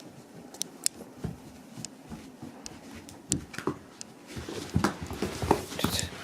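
Elderly Shiba Inu's claws clicking and paws scuffing on a hard floor as she turns in a panic-circling spell. The clicks are scattered at first and crowd together over the last two seconds.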